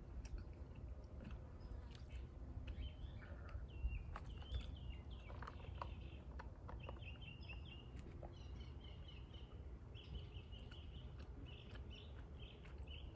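Small birds chirping in runs of quick, repeated high notes over a steady low background rumble.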